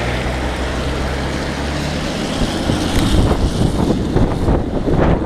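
A steady low hum for about the first two seconds, then wind buffeting the microphone in irregular gusts.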